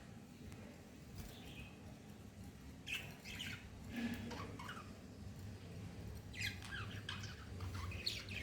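Budgerigar chattering in short, scattered chirps and squawks, with a busier run of calls near the end, over a low steady background hum.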